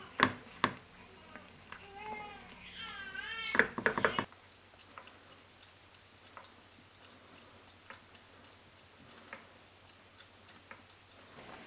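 A person coughs twice, and a domestic cat answers with a wavering, quack-like call lasting about a second and a half. A quick run of coughs follows, and then there are only faint scattered clicks.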